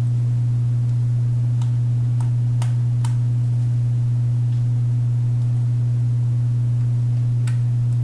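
Loud, steady low electrical hum with a fainter higher overtone, and a few faint clicks as small parts are handled about two to three seconds in and again near the end.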